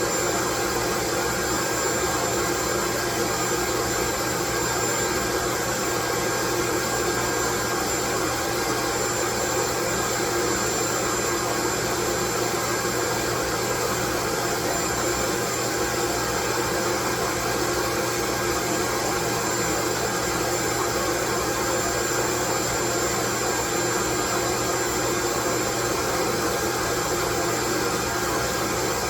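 Loud, steady white noise: an even, unchanging hiss spread across all pitches, with a few faint steady tones running through it.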